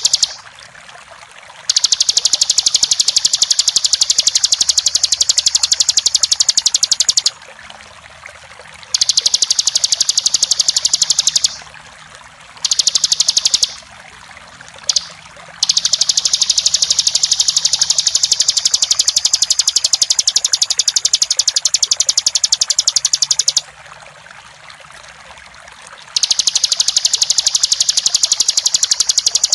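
Bar-winged prinia (ciblek) singing its rapid, drill-like trill in long high-pitched bouts of several seconds, about five of them with short pauses between, over a steady rush of running water.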